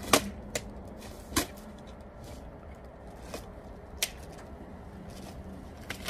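A handful of short knocks and clunks, the loudest right at the start, as a plastic-wrapped refrigerator is shifted and tipped over on a pickup truck's metal bed, over a low steady rumble.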